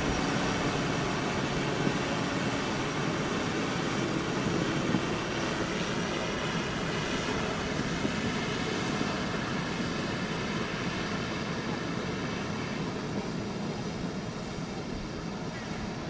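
AVIC AG600 amphibious aircraft's four turboprop engines and propellers running as it taxis across the water: a steady drone with a faint propeller hum, easing off a little near the end as it moves away.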